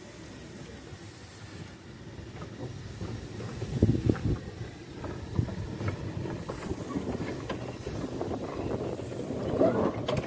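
Hunslet quarry narrow-gauge steam locomotive moving off from a stand. It is quiet at first; from about four seconds in come exhaust chuffs and knocks, with steam hissing louder near the end as it passes.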